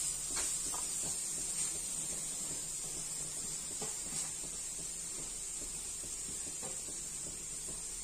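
Ghee sizzling steadily in a cooking pan, with a few faint taps from a spatula.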